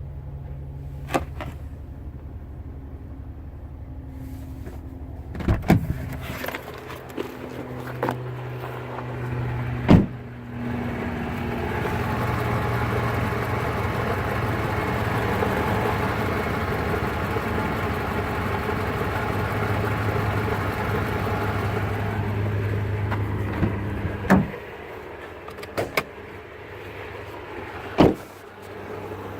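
Car engine idling with a grinding rattle from its supercharger, like marbles inside it, which the owner traces to the supercharger. The rattle is louder through the middle stretch. Several sharp clicks and thumps break in along the way.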